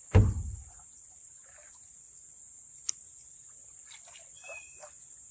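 A steady high insect chorus runs throughout, with faint bird calls at about one and a half seconds and again near the end. Just after the start there is a single loud thump, and a sharp click comes near the middle.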